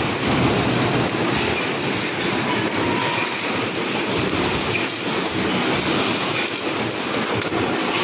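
3D EPS panel wire mesh welding line running, with wires drawn off the pay-off reels through the straightening rollers: a steady, dense mechanical noise with faint irregular ticks.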